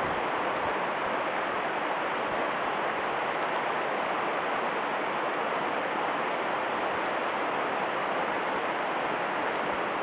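Salmon River rushing: a steady, even sound of fast water flowing over rocks, close at hand.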